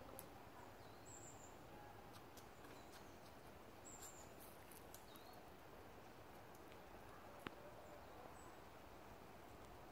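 Near silence: faint outdoor background hiss with a few short, faint high chirps and a couple of soft clicks.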